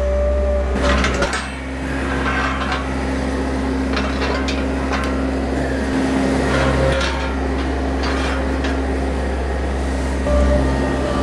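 Galvanised steel cattle hurdles clanking and rattling as they are handled, several separate metal knocks. Under them runs the steady low hum of the skid-steer loader's engine idling.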